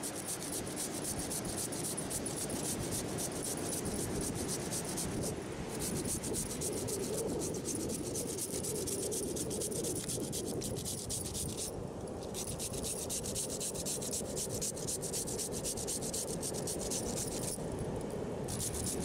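Raw potato being grated on a handheld grater, a plastic frame with a metal grating blade: rapid, even rasping strokes, stopping briefly three times, at about five, twelve and eighteen seconds in.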